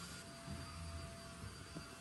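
Quiet room tone: a faint steady hum with a soft low rumble from about half a second to a second in.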